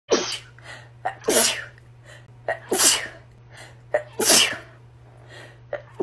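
A woman sneezing in a rapid fit: four sneezes in quick succession, about a second and a half apart, each after the first set up by a short, sharp in-breath.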